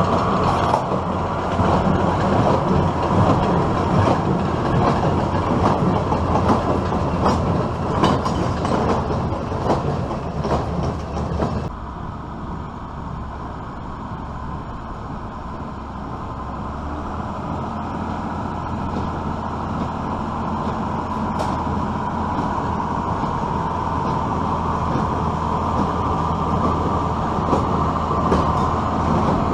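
Case IH Maxxum 5140 diesel tractor running a New Holland 570 small square baler, a steady engine drone mixed with repeated knocks from the baler's working parts. The sound drops abruptly about twelve seconds in and then grows steadily louder toward the end as the rig draws nearer.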